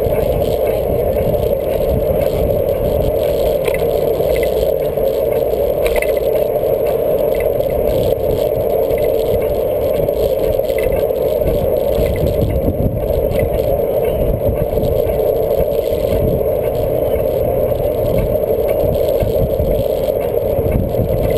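Steady wind noise and road rumble on the microphone of a camera carried on a moving bicycle, with a few faint clicks and rattles.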